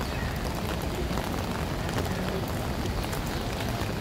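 Steady rain hiss mixed with a low rumble of city traffic on wet streets, with scattered light ticks of falling drops.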